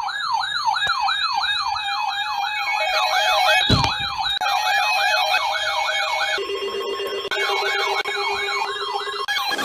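Electronic emergency siren in a fast yelp, sweeping up and down about two to three times a second, with other siren tones layered over it. The fast sweep breaks off for a moment about two-thirds of the way in while a steady lower tone sounds, then resumes. There is a brief low thump a little before halfway.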